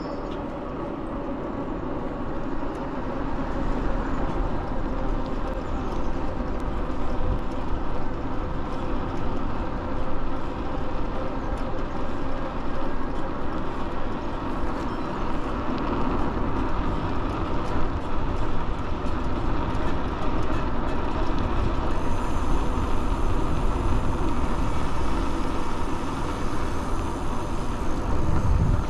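Wind rushing over the microphone and tyre noise from an e-bike riding along a paved street, with a steady hum running underneath. It grows louder over the first few seconds as the bike picks up speed.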